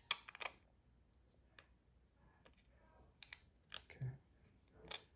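Faint, scattered clicks and taps of small folding-knife parts, a Spyderco Stretch 2's washers, liners and scales, being handled and fitted together during reassembly: a quick cluster at the start, then single clicks every second or so.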